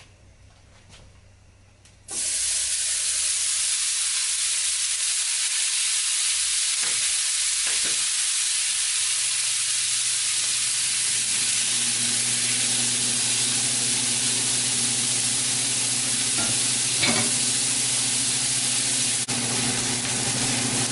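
Raw ground beef dropped into a hot, dry stainless-steel skillet with no oil, sizzling loudly and steadily from the moment it lands about two seconds in, as the meat starts to brown and release its juices and fat.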